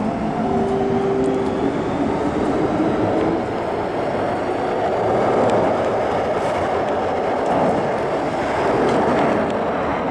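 MTR M-Train electric multiple unit running through the station without stopping: a steady rumble of wheels on rail, with a hum of tones that slowly shift in pitch in the first few seconds and the loudest passage about halfway through.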